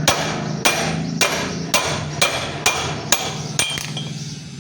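Hammer blows on metal, about eight strikes at roughly two a second, each with a short metallic ring, as in knocking out a vehicle wheel bearing. A steady low hum runs underneath.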